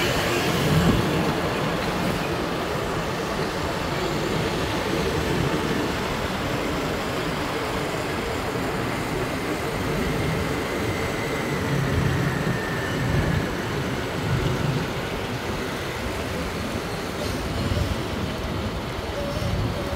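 Steady traffic and street noise, a constant rumble of passing vehicles with no single event standing out.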